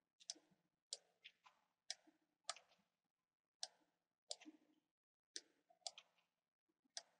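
Faint computer mouse button clicks, irregular, about one every half second to a second, some in quick pairs, as UV shells are selected and dragged in Maya.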